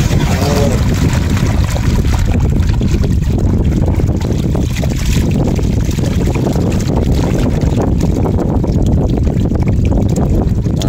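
Wind buffeting the microphone, with the wet slapping and splashing of live fish being shaken out of a China jal trap net into a bamboo basket, and water trickling from the net and fish.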